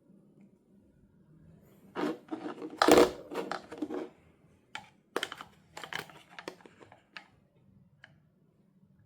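Hands handling plastic toy parts and packaging: a burst of crinkling and clicking about two seconds in, then a string of sharp clicks and taps.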